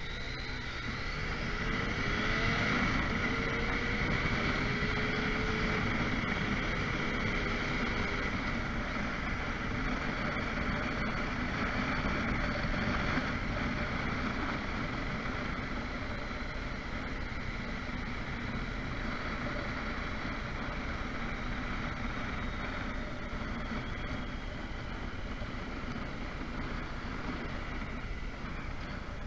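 Motorcycle pulling away, its engine note rising over the first few seconds as the sound grows louder, then cruising with steady wind and road noise on the onboard microphone.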